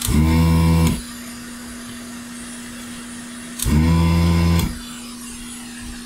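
Hot-air rework nozzle blowing steadily with a faint hum. Twice, a motor-driven desoldering vacuum pump whirs for about a second as it tries to suck molten solder out of connector pin holes.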